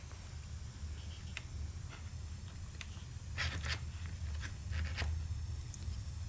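Short scrapes and light ticks of a butane soldering iron's tip and thin solder working along a stained glass panel, a few in a row a little past halfway, over a steady low hum.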